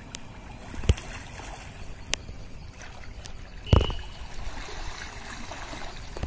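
Water sloshing and gurgling around men wading and ducking under the surface, with two dull thumps, the louder one near four seconds in.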